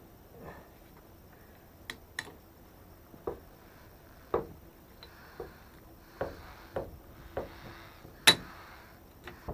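A series of irregular knocks and taps from hard objects, about a dozen over several seconds, with the sharpest knock near the end.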